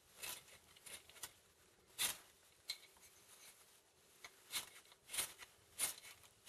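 A disposable lighter's spark wheel struck again and again, about eight short scratchy flicks at uneven intervals a second or so apart, as it is worked to light the tinder of a bark torch.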